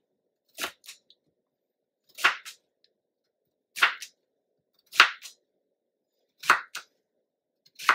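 Crinkle cutter chopping slices off a zucchini onto a plastic cutting board: about six sharp chops, roughly one every second and a half.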